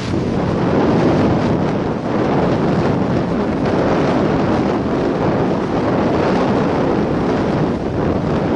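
Wind buffeting a helmet-mounted camera microphone as the horse goes at speed, a loud, steady rumbling rush that covers other sound.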